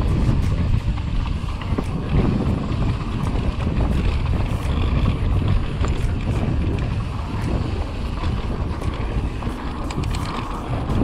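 Wind buffeting a GoPro's microphone as a mountain bike descends a rough dirt singletrack at speed, with the steady rumble of the tyres on dirt and a running clatter of sharp clicks and rattles as the bike shakes over brake bumps.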